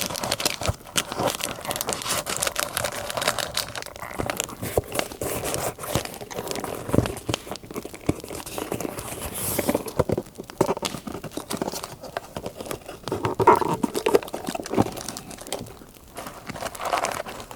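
Paper crinkling and rustling as it is handled, with short tearing sounds and many scattered small crackles.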